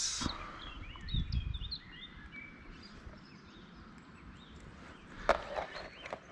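Small birds chirping in short rising and falling notes over faint outdoor background noise, with a brief knock about five seconds in.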